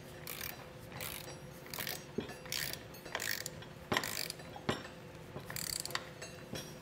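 Hand ratchet wrench with a hex bit running bolts down into an air spring's roll plate, its pawl clicking in short bursts on each back-swing, about once a second.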